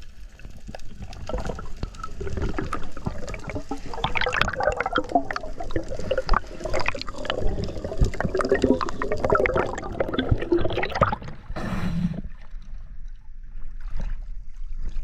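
Water gurgling and bubbling, heard underwater, as an irregular stream of small bubbly clicks and blips that grows busier a few seconds in.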